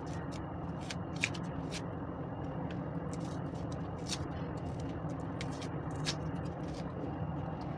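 Shallots being peeled by hand with a small paring knife: scattered light clicks and scrapes of the blade and the papery skins, over a steady low background rumble.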